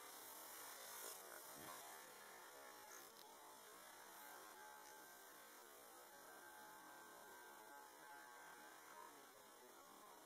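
Near silence: a faint, steady hiss and hum.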